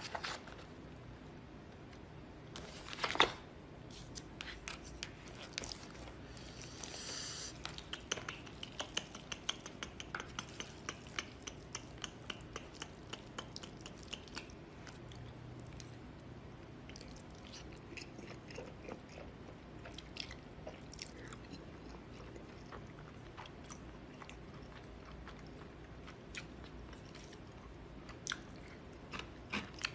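Close, faint chewing and mouth sounds of someone eating jajangmyeon noodles, with many small clicks and one louder clack about three seconds in.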